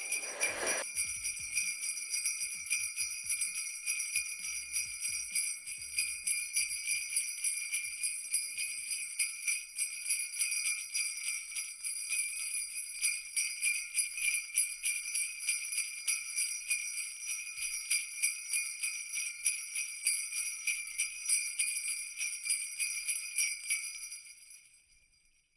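Sleigh bells jingling in a fast, steady shake with a bright high ring, fading out near the end.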